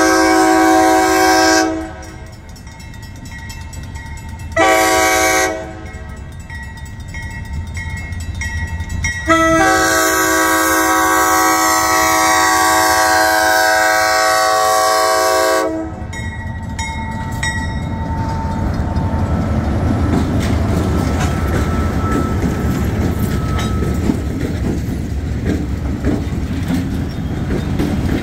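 Diesel freight locomotive horn sounding its grade-crossing warning: the end of one long blast, a short blast about five seconds in, then a long blast lasting about six seconds. After the horn stops, the locomotives, including an ALCO C425, pass close by with a steady rumble of diesel engines and wheels on rail.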